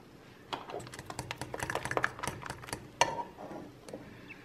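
Metal spoon stirring banana pancake batter in a bowl: rapid clicks and scrapes of the spoon against the bowl, starting about half a second in, with a short ring from the bowl about three seconds in.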